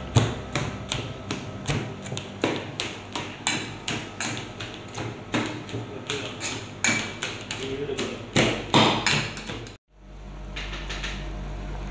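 Stainless steel pestle pounding in a steel mortar, crushing grated coconut, with sharp metallic knocks about two to three times a second. Near the end the knocking stops and a steady low noise from a boiling pot of tapioca takes over.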